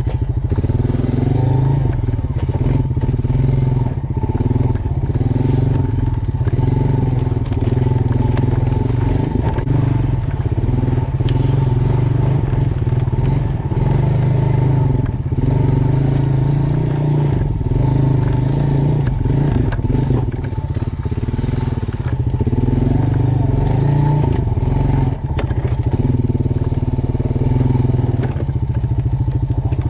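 Honda Fourtrax Rancher ATV's single-cylinder four-stroke engine running steadily as the quad is ridden over rough forest ground. Small knocks and rattles from the bumps are heard under it.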